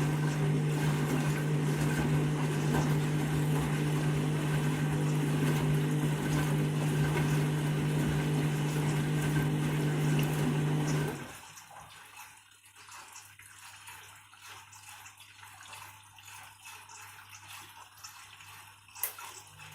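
Candy washing machine filling with water for a deep rinse: a steady hum over water rushing in, which cuts off suddenly about eleven seconds in and leaves a much quieter trickle, with a single click near the end.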